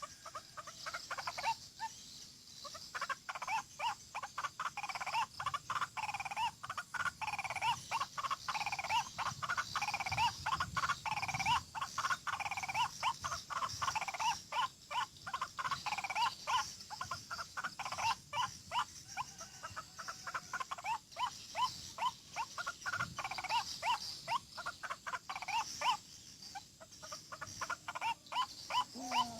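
White-breasted waterhen calls: a long, rapid run of repeated croaking notes, broken by short pauses. A steady high insect drone sounds behind them.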